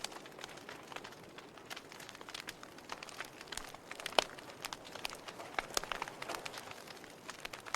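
Wood fire crackling: a soft steady hiss with irregular sharp pops and snaps, the loudest a little after four seconds in.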